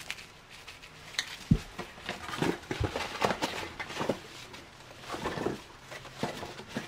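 Rummaging through a cardboard box: rustling and light clicks and knocks of items being moved and lifted out, with two dull thumps a little over a second apart near the start.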